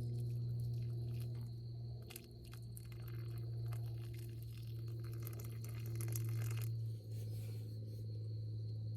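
Crickets chirping in a steady high trill over a continuous low hum, with scattered clicks and crackling handling noise through the middle of the stretch.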